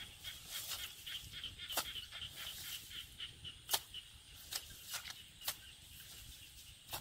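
A hoe chopping into a grassy mud bank: a series of about six sharp, irregularly spaced strikes, with a scratchy rustle of grass between them in the first few seconds.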